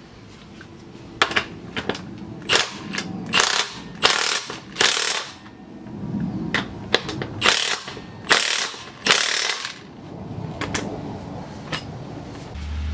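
Socket ratchet clicking in repeated short strokes as the bolts holding a pit bike's rear brake caliper are tightened; the clicking stops about ten seconds in.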